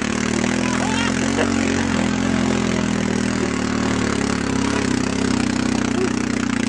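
Snowmobile engine running steadily at a fairly constant speed while towing a person on a rope, heard from on board the machine, its pitch wavering only slightly.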